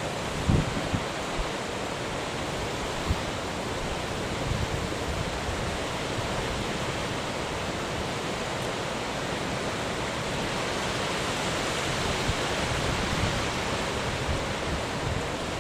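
Steady rush of wind and choppy sea, with gusts buffeting the microphone in short low thumps, the strongest about half a second in.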